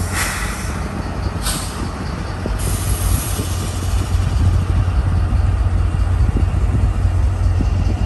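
Freight-type CSX diesel locomotives running past, a heavy low engine rumble that builds a little as they go by. Short air hisses come in the first few seconds.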